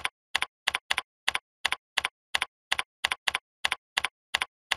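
Computer keyboard keystrokes as a chart title is typed: about fifteen short, sharp clicks at roughly three a second, with dead silence between them.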